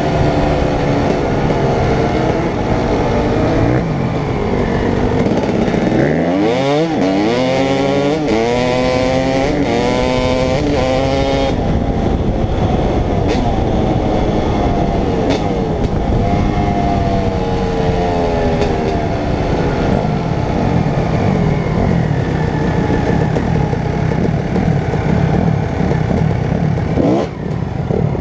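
Dirt bike engine running hard under the rider, heard close from on board, its pitch rising and falling as it accelerates and shifts. It climbs in several quick rising sweeps about a quarter of the way in and eases off near the end as the bike slows.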